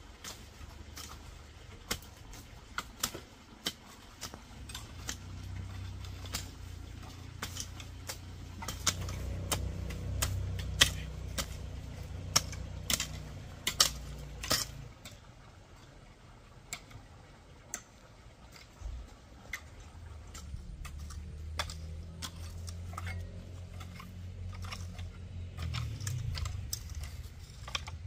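Hand-tool work: irregular sharp clicks and knocks, one or two a second, thinning out about halfway through, over a low rumble that rises and falls.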